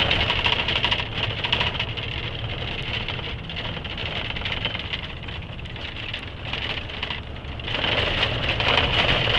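Truck driving along a rough, patched road, heard from inside the cab: a steady low engine and tyre rumble with a constant rattling clatter. It dips a little in the middle and swells again near the end.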